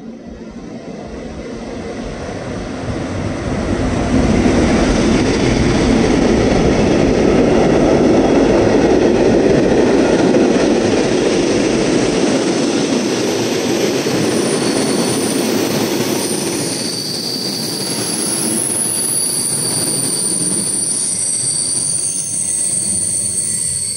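Locomotive-hauled passenger train arriving, its rumble building as the locomotive draws close and passes. Then its coaches roll past as it slows, with a high, steady squealing that sets in past the halfway point and grows toward the end.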